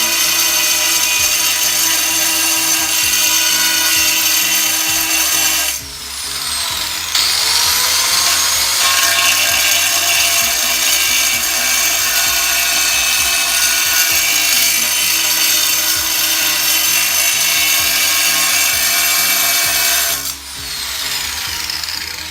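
Electric angle grinder whining at full speed. About six seconds in it is switched off and starts winding down, then it is switched back on and audibly spins up. It runs steady for about thirteen seconds before being switched off again and spinning down near the end.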